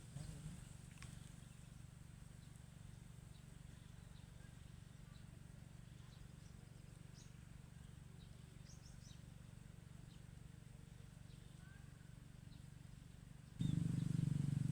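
Quiet outdoor ambience: a steady low hum with faint, short, high bird chirps scattered through it. Near the end a much louder low rumble starts suddenly and carries on.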